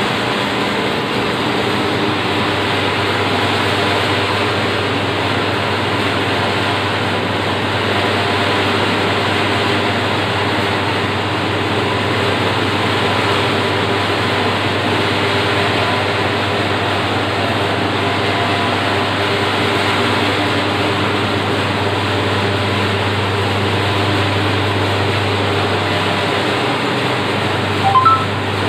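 Rotary rack oven running, a steady blower and burner roar over a low mains-motor hum. Near the end there is a quick rising three-note beep.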